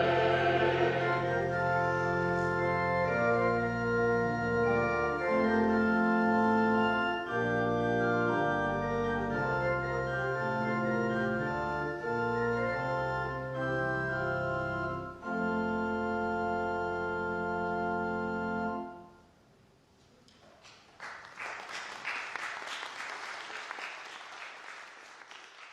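Organ playing slow, held chords that move step by step, ending on a final chord that cuts off about 19 seconds in. After a short pause the congregation applauds, the clapping dying away near the end.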